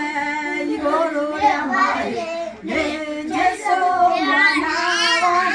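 A woman and a group of young children singing a song together, with held notes and a high wavering child's voice about four seconds in.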